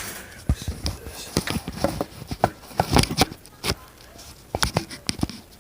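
A dozen or so irregular knocks and clunks over about five seconds, like metal and wood being handled and set down, as the McCulloch two-man chainsaw sits shut off.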